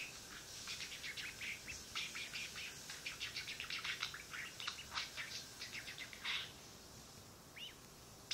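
Pet birds, a duckling and a budgerigar, chirping: quick runs of short, high chirps and peeps that thin out after about six seconds, with one rising call near the end.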